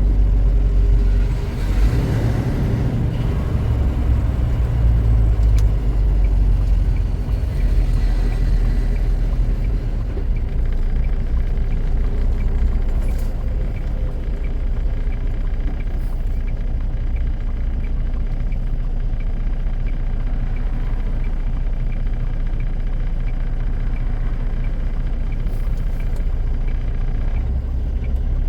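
Semi truck's engine and road noise heard inside the cab while driving: a steady low drone, heavier for the first several seconds and then even, with a few faint clicks.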